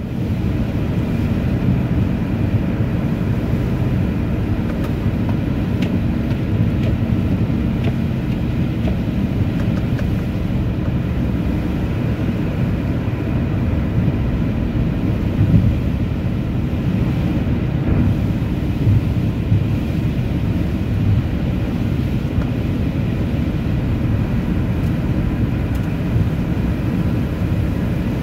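A car driving, a steady low rumble of engine and road noise that holds even throughout.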